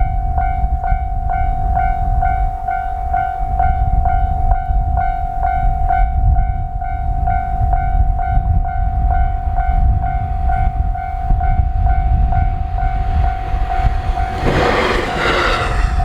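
Japanese level-crossing warning bell ringing steadily, about two strikes a second, over a heavy low rumble. Near the end a brief loud rush of noise drowns the bell for about a second.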